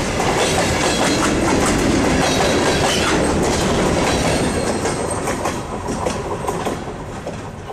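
Freight train hopper cars rolling past close by, their wheels clacking over the rails; the last car goes by about four seconds in and the sound then fades as the train moves away.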